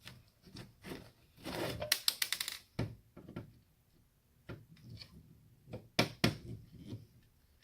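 Clicks and knocks of small tools and hard plastic and metal parts being handled while a scrap electronic unit is taken apart by hand. There is a quick run of rapid clicks about two seconds in and two loud knocks about six seconds in.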